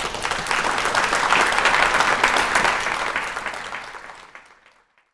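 Audience applauding: many hands clapping at once, loudest about two seconds in, then fading away to silence near the end.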